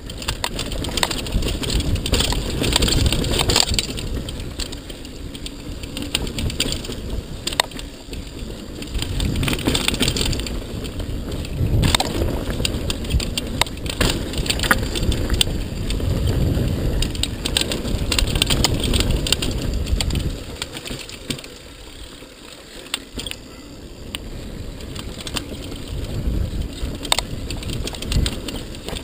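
Mountain bike descending a dirt downhill trail, recorded on the rider's camera: a steady rumble of wind on the microphone and tyres on the dirt, with frequent clicks and rattles from the bike over bumps. It eases off for a few seconds about two-thirds of the way through.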